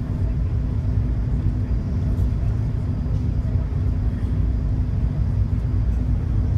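High-speed passenger ferry's engines running at cruising speed: a steady low rumble with a constant hum, heard inside the passenger cabin.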